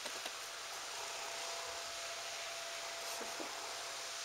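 Steady background hiss with a faint constant whine under it, and a few soft rustles near the start and about three seconds in.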